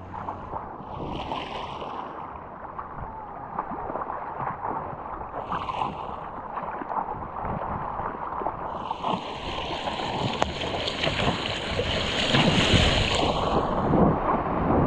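Ocean water sloshing and splashing close around a helmet-mounted GoPro, with hissing surges of whitewater about a second in, again around six seconds, and a longer one from about nine to fourteen seconds.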